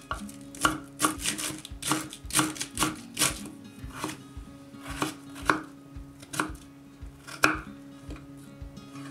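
Kitchen knife chopping cabbage and then a potato on a wooden cutting board: sharp knocks of the blade on the board, coming quickly for the first few seconds, then more spaced out.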